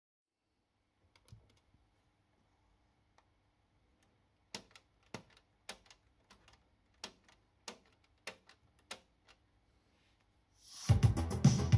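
Front-panel push buttons of a 1980s Sanyo stereo integrated amplifier clicking as they are pressed: a dozen or so sharp clicks over about five seconds, under a faint steady hum. About a second before the end, music with guitar and drums starts playing through the amplifier's speakers from a computer sound card, a sign that the amplifier works.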